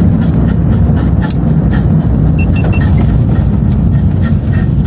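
Volkswagen Kombi driving, its engine and road noise steady, with irregular sharp clicks that may be the wheel noise that began after braking; the driver wonders whether the brake caliper has come loose again. Three short high beeps sound about two and a half seconds in.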